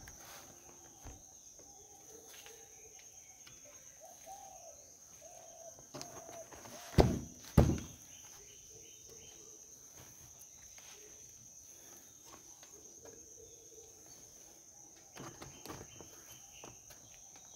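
Two heavy thumps about half a second apart, from a hand striking the three-wheeler's rear window and body panel, with a few lighter knocks near the end. A steady high insect chirring runs underneath.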